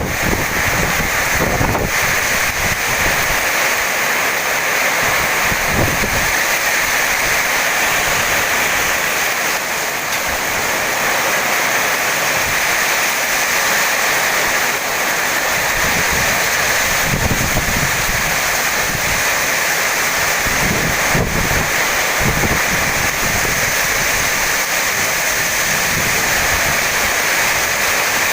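Heavy rain pouring down steadily, with gusts of strong wind buffeting the microphone now and then.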